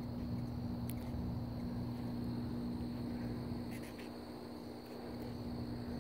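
Backyard ambience: a steady high insect trill, typical of crickets, over a steady low hum. There are a few faint clicks, about a second in and again near four seconds.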